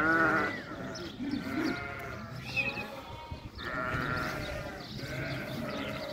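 A flock of sheep bleating, several calls overlapping one after another, the loudest right at the start.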